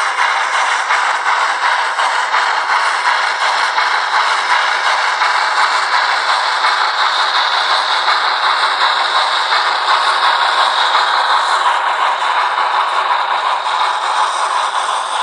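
Rivarossi H0 model of the Bavarian class 96 Mallet steam locomotive on a test run: its sound decoder plays steady steam-locomotive running sound through a tiny loudspeaker, thin and without bass. Mixed with a continuous fine rattle of the model running over the track.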